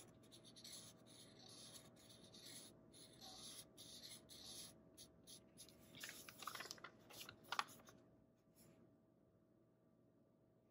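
Black Sharpie marker drawing on paper: faint scratchy strokes, a few louder ones about six to seven seconds in, stopping about eight seconds in.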